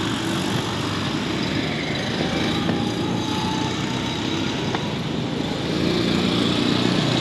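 Road traffic: vehicle engines running close by over a steady street noise, with an engine hum growing louder about six seconds in.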